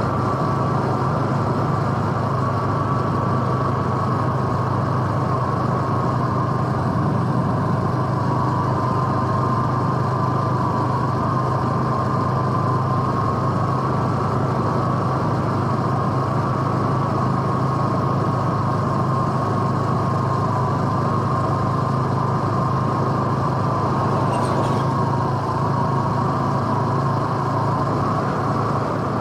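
Honda Super Cub C125's 125 cc single-cylinder engine running steadily while the bike is ridden at an even pace, with a steady whine held over the engine note.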